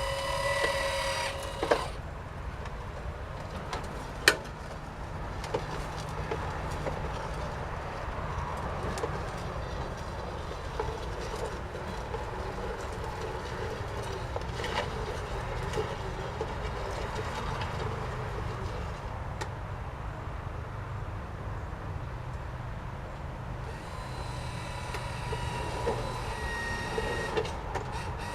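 Small electric garden tractor's 1 HP motor running with a steady whine that drops away about two seconds in and comes back near the end. In between there is a low rumble with scattered clicks and rattles from the machine.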